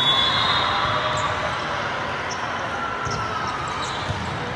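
Echoing din of a large sports hall with volleyball courts in play: balls bouncing and being hit, with a few short high squeaks.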